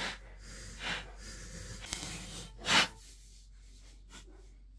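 Two soft rasping strokes about a second apart as the plastic Sphero 2 shell is cut and handled in the vise. About three seconds in there is a short, loud, breathy rush.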